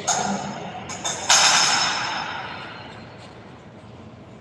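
Metal parts of a rotary screen printing press knocking together twice, the second strike louder, each leaving a ringing tone that fades over about two seconds.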